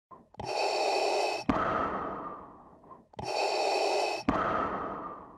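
A looped breathing-like sound effect: a hiss about a second long like an inhale, a sharp click, then a fading exhale-like hiss, repeated twice at an even pace of about three seconds per cycle.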